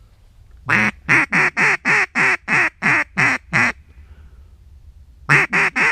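Mallard duck call blown in a string of loud quacks: one longer first quack, then about nine short ones in an even cadence. After a pause, a second string starts near the end.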